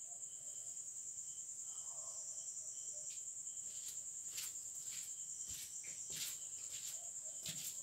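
Insects trilling steadily in a faint, high, pulsing buzz, with a lower chirp repeating two or three times a second for the first few seconds and a few scattered faint clicks.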